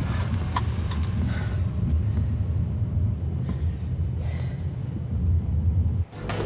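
A low, steady rumble like a motor vehicle running, with a few sharp clicks in the first two seconds. It cuts out abruptly about six seconds in.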